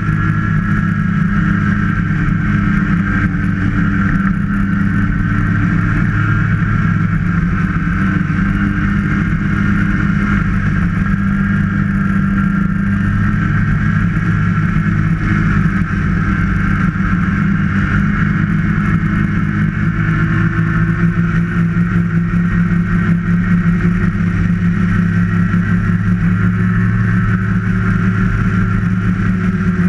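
Snowmobile engine running steadily at trail-cruising speed, its pitch drifting slightly up and down with the throttle.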